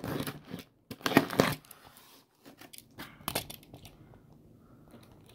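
Packing tape on a cardboard shipping box being slit with a box cutter and torn: loud tearing in the first second and a half, then quieter scattered crinkles and clicks.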